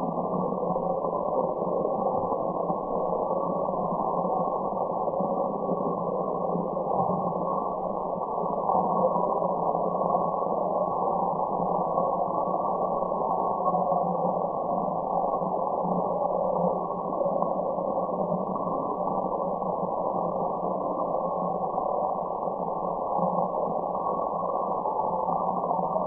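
Steady synthetic relaxation noise with its highs cut off, so it sounds like a dull, muffled hiss, with a low hum underneath. It does not change.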